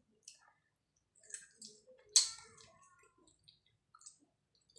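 Soft, scattered wet clicks and squishes of rice and mutton curry being mixed by hand and eaten, with one louder, sharp mouth or handling sound about two seconds in.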